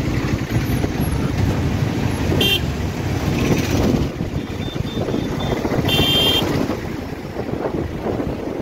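Riding a motorcycle in city traffic: a steady rumble of engine and wind, with vehicle horns tooting briefly about two and a half seconds in and again around six seconds, and a run of faint short beeps in between.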